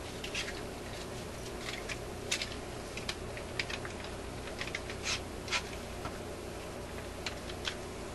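Scattered light clicks and taps as a hand clamp is handled and fitted against a record changer's mechanism, over a steady low electrical hum.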